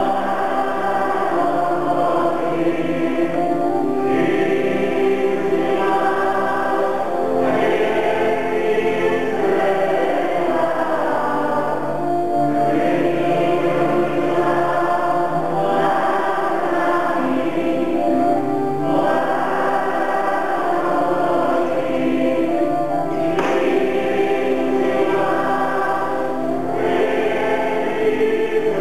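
A choir singing a church hymn in slow phrases of about four seconds each.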